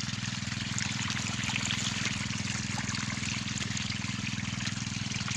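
Water pouring steadily from the end of an irrigation hose into a furrow, with a steady low motor hum underneath.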